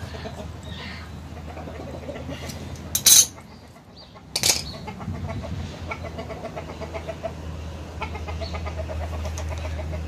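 Two sharp metal clanks, about three and four and a half seconds in, as a small steel bracket is worked with pliers and a hammer, over a background of short, rapidly repeated animal calls.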